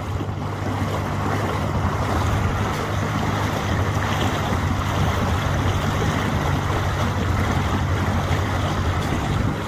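Boat motor running steadily with a low hum, under wind and water noise on the microphone.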